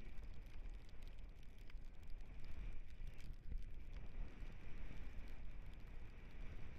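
Dog scooter rolling fast over a dirt track behind a two-dog team: a steady rumble of tyres and wind on the microphone, with scattered small clicks and rattles and a faint steady high whine.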